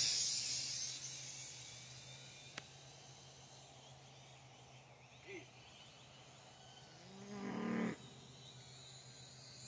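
Small toy drone's high buzzing whine fading away over the first second or two as it flies off into the distance, leaving quiet with a faint steady hum and a single click. Near the end comes a drawn-out call lasting about a second, the loudest sound once the buzz has faded.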